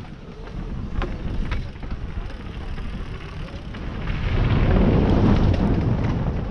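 Wind buffeting an action camera's microphone while riding, a dense low rush with a couple of sharp knocks about a second in, swelling louder past the middle.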